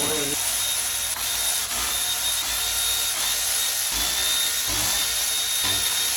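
Hand-tool and metal-part noise from an engine teardown: scattered clicks and a few low knocks over a steady high hiss with a faint thin whine.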